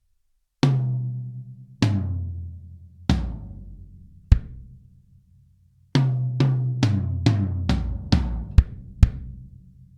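A custom drum kit with Keller shells and Aquarian heads being sound-tested. Three single tom strokes ring out one after another, each lower in pitch, from the high tom down to the floor tom, and are followed by one bass drum kick. After a short pause a quicker run of tom strokes comes, with two bass drum kicks near the end.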